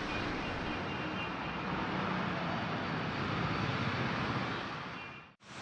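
Floodwater rushing through a street, a steady roar of water that cuts off abruptly near the end.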